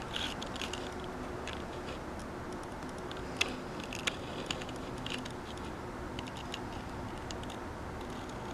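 Quiet room tone with a low steady hum and scattered faint clicks and ticks, two slightly louder ones about three and a half and four seconds in.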